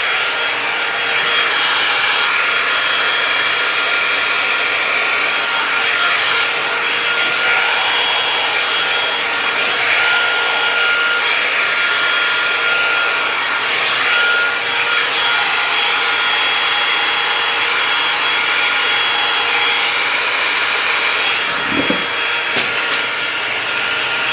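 Tymo hot-air blow-dry brush running steadily: a loud rush of air with a constant high motor whine, with the bristles working through the hair. A brief low knock near the end.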